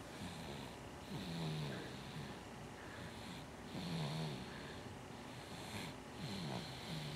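Sleeper snoring: three snores about two and a half seconds apart, each falling slightly in pitch, with a breathy hiss.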